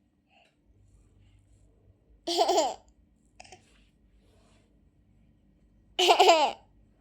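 Baby laughing in two loud, short bursts about four seconds apart, with a brief faint squeal between them.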